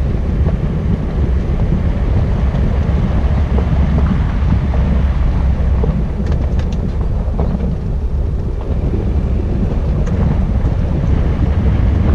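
A vehicle on the move: a steady low rumble with wind buffeting the microphone.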